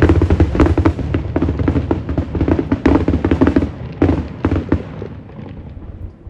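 Fireworks display: a rapid volley of aerial shells bursting and crackling one after another, beginning with a loud bang and thinning out and fading away about five seconds in.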